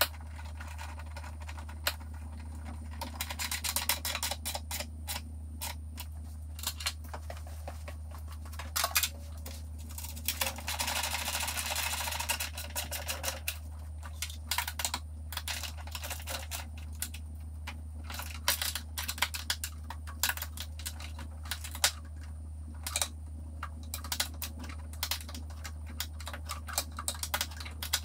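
Hand tools working the brace's nuts and bolts: a ratchet wrench clicking in irregular runs, with metal clinks and a longer stretch of steady clicking and scraping near the middle. A steady low hum runs underneath.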